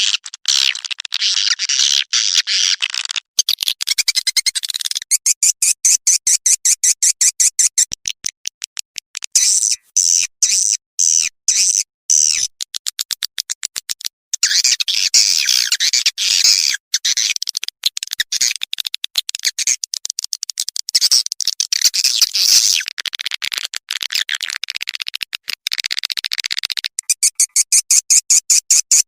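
Swiftlet call track: high-pitched swiftlet chirps and rapid clicking trills, coming in dense trains that start and stop every second or two. It is a lure call of the kind played in swiftlet nesting houses to draw birds in to roost.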